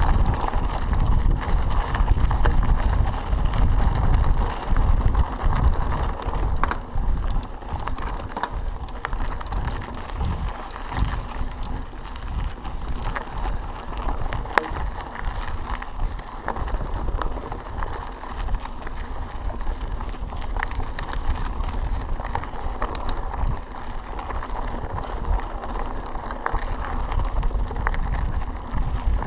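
Mountain bike riding along a gravel forest track: tyres rolling over gravel with scattered small clicks and rattles from the bike. Wind buffets the microphone throughout as a low rumble.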